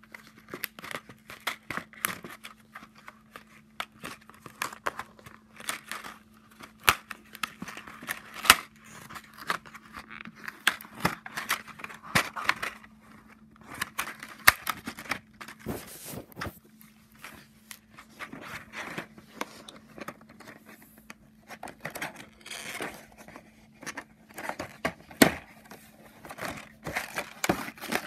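Clear plastic packet of LEGO pieces crinkling and crackling in quick, irregular clicks as fingers handle and pull at it.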